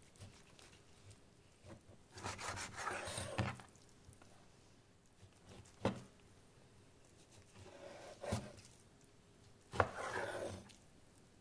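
Chinese cleaver slicing through raw pork neck on a wooden chopping board: three rasping cuts about a second long, with sharp knocks of the blade striking the board.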